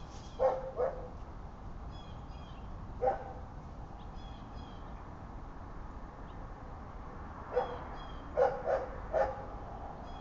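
A dog barking: seven short barks in three groups, two, then one, then four close together. Small birds chirp faintly between them.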